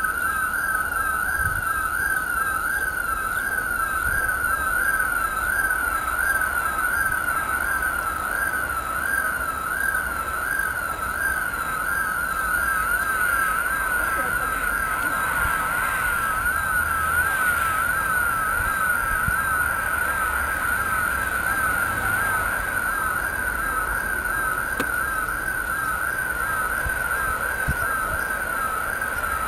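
Electronic siren sounding in a fast, steady warble, its pitch sweeping up and down a few times a second without a break.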